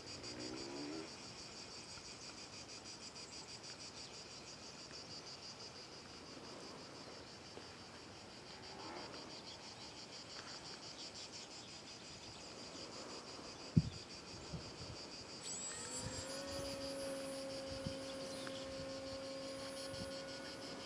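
Insects chirping steadily in a fast pulsing trill, with a sharp knock about 14 seconds in. About 15 seconds in, a steady pitched hum starts up and holds: the RC electric glider's motor running.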